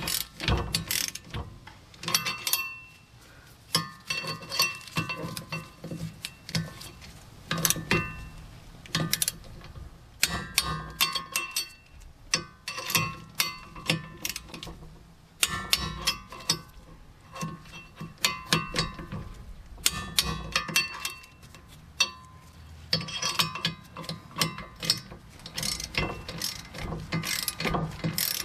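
Hand socket ratchet clicking in quick bursts with short pauses, its pawl ticking on each back-stroke as the wheel hub bearing's mounting bolts are run down.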